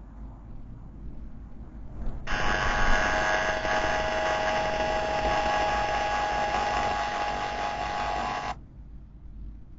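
An electronic alarm sounding with several steady tones for about six seconds, starting and stopping abruptly.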